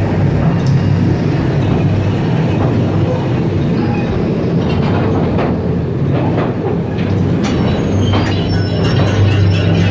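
Mine-train ride cars rolling along their track: a steady low rumble, with a run of clacks from the wheels over the rails about halfway through.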